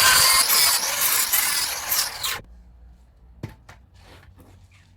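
Angle grinder with a flap disc grinding down a fresh weld on car body steel, a loud steady grinding noise that stops about halfway through, followed by a few faint knocks.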